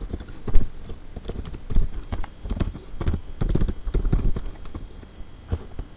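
Typing on a computer keyboard: quick, uneven keystroke clicks, some struck harder than others, thinning out near the end.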